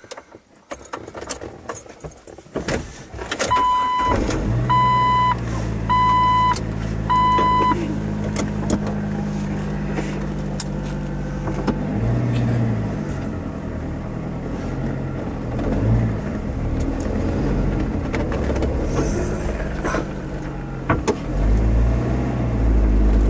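Jeep Wrangler TJ started with the key: clicks of keys and ignition, then the engine catches about four seconds in while a warning chime beeps four times. It idles, then drives off, the engine note rising and falling and getting louder near the end.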